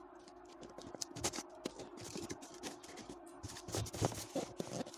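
Hands working open the hair dryer's packaging: a quick, busy run of rustles, crinkles and clicks.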